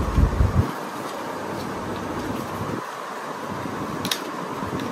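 White cardboard watch-box packaging being handled: a few dull bumps at the start and a short click about four seconds in, over a steady background hiss.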